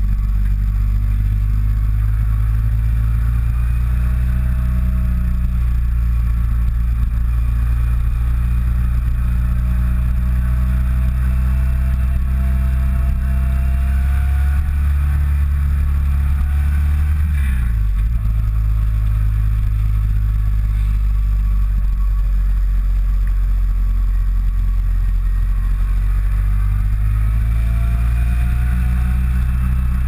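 Kawasaki W650 air-cooled parallel-twin engine running steadily while riding. About halfway through, the engine note drops in pitch briefly, then steadies again.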